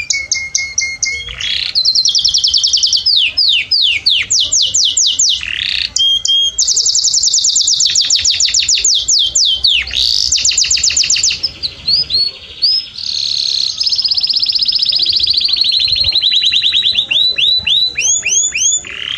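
Domestic canary singing a continuous song: fast trills of rapidly repeated notes and runs of downward-sweeping whistles, switching to a new phrase every second or two without a break.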